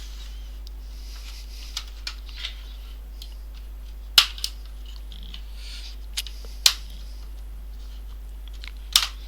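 Scattered sharp clicks and taps of plastic and metal laptop parts being handled during disassembly. The three loudest come about four seconds in, six and a half seconds in, and near the end.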